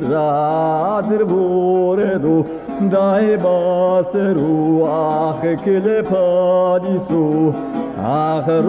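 A man singing a Zazaki folk song in a winding, ornamented line over a steady low drone, from an old 1976 recording with a dull sound that lacks highs.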